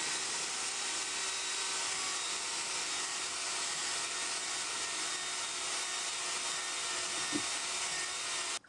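Cordless drill running steadily as it bores a hole through the boat for battery wires. It stops abruptly near the end.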